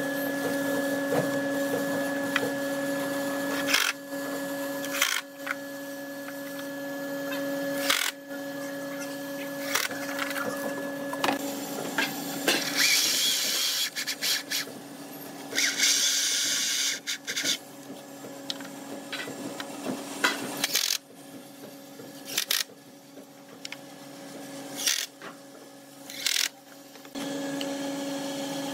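Electric drill motor running with a steady whine, cutting out briefly now and then. In the middle, a hinge-cup boring bit chews into a wooden cabinet door in two harsh cutting spells. Quieter clicks and knocks follow, and the drill whine comes back near the end.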